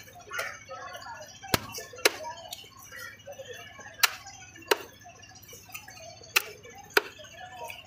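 Heavy fish knife chopping through a fish into a wooden log chopping block: six sharp chops, falling roughly in pairs about every two seconds.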